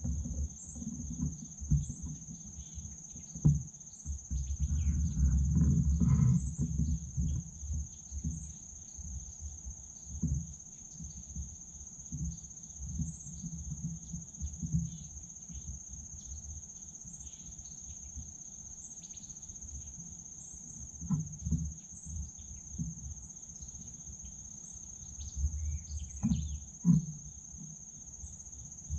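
Steady high-pitched chorus of insects trilling without a break. A low rumbling noise comes and goes over it, loudest around five seconds in and again near the end.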